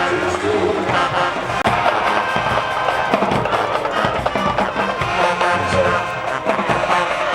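Loud music with drums, crowd noise under it.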